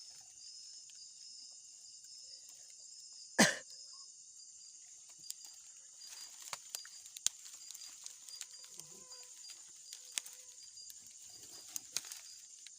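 Insects chirping steadily in a high, evenly pulsing drone, with one short, loud burst of noise about three and a half seconds in and a scattering of faint clicks.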